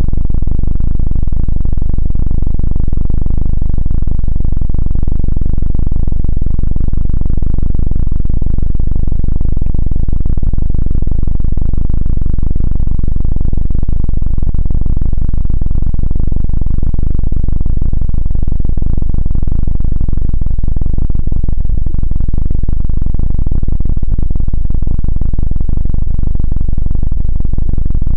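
Helicopter sound effect: a loud, steady, heavily distorted low rumble of rotor and engine, unbroken throughout.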